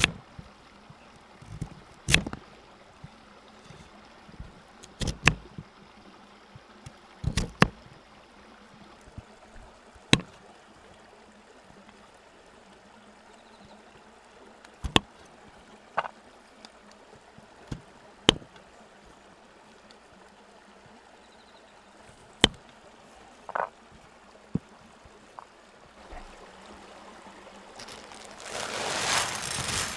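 Kitchen knife slicing a sweet potato on a wooden cutting board, each cut ending in a sharp knock on the board, about ten knocks a few seconds apart. Near the end a rising hiss as something is poured from a plastic bag into an aluminium mess tin.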